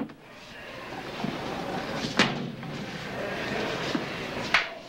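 Two sharp knocks about two and a half seconds apart, over a steady low background noise.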